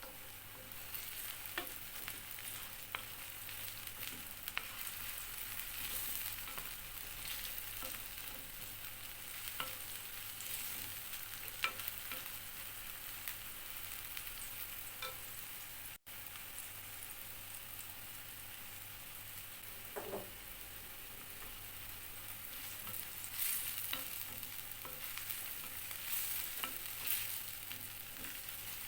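Food sizzling in hot oil in a pan while it is stirred, with scattered clicks and scrapes of a utensil against the pan.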